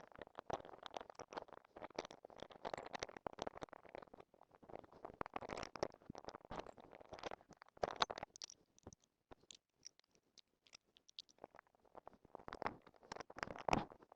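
Handling noise: irregular rustling, scraping and small knocks, as of tools and packaging being moved about and put away.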